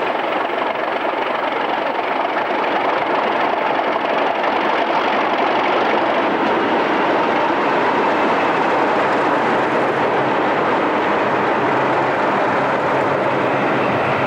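Class 37 diesel locomotives working a passenger train: a steady heavy engine and running noise that grows a little louder.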